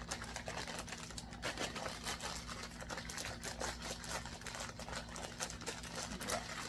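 Plastic bag rustling and crinkling with many small irregular clicks as tapered wheel bearings are put into it, over a steady low hum.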